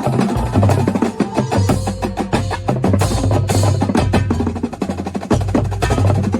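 Drum corps percussion section playing: dense, rapid drum strokes over pitched keyboard percussion, with a low bass line moving in steps.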